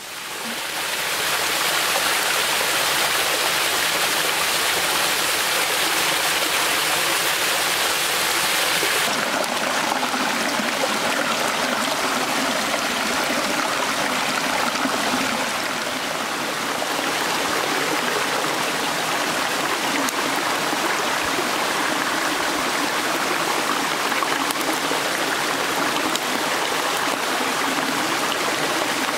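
Small mountain stream rushing and splashing down over rocks in a steady wash of water noise. It swells up over the first couple of seconds and shifts in tone about nine seconds in.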